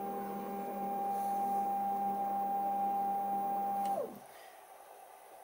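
DIY CNC lathe's carriage drive moving the drill and tool holder back from the workpiece: a steady motor whine that glides up as it starts, holds for about four seconds, then glides down as it stops.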